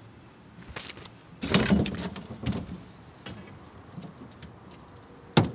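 A series of knocks and thumps from things being handled in an aluminium fishing boat. The loudest comes about a second and a half in, and a sharp knock comes near the end.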